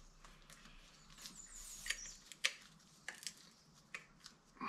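Faint, scattered light clicks and taps of small parts being handled and fitted onto an outboard lower unit's driveshaft: a washer and plastic ring going on above the water pump housing.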